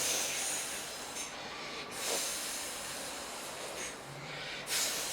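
A person imitating a snake with long, drawn-out hisses, several in a row with short breaks between them.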